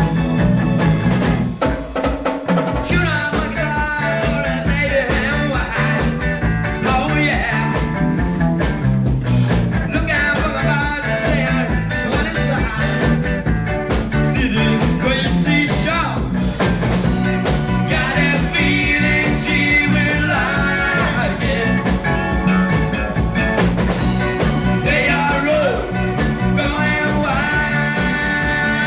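A band playing rock-style music with a steady beat and a melodic lead line.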